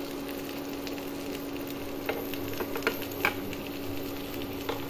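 Marinated chicken leg pieces sizzling steadily in butter in a pan on a low flame, with a few sharp clicks as a utensil touches the pan while pieces are turned. A steady low hum runs underneath.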